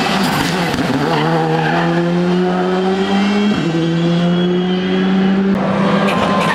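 Rally car engine running hard under load, its note rising steadily, with a brief break about three and a half seconds in, then breaking up near the end as the driver comes off the throttle.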